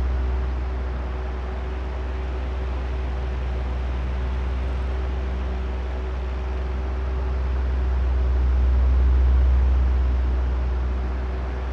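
Oscillating electric fan running: a steady motor hum under the rushing air. The sound swells and fades slowly as the head turns back and forth, loudest about nine seconds in.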